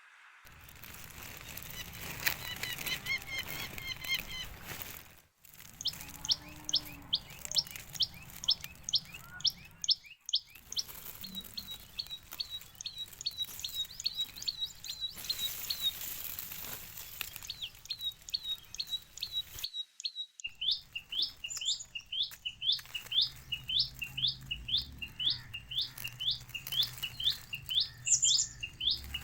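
Tailorbird chicks chirping: long runs of short, sharp chirps, about three a second. There is a denser jumble of calls near the start, and the runs are broken by a few sudden cuts.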